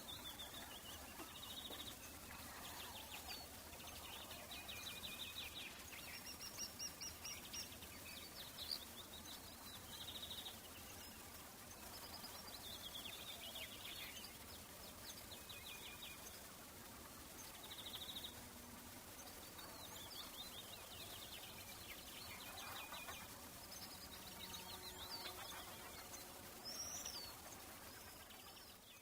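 Outdoor summer ambience of several songbirds chirping and trilling, many short calls overlapping over a faint steady background hiss.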